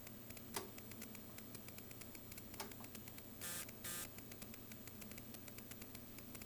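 Quiet room tone: a steady low electrical hum with dense faint crackling ticks. One sharp click about half a second in, and two short hissy puffs of noise around three and a half seconds.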